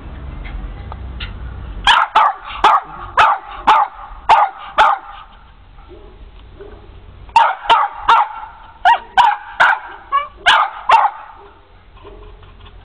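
Dog barking in two bouts of repeated sharp barks about half a second apart, the first starting about two seconds in and the second about seven seconds in.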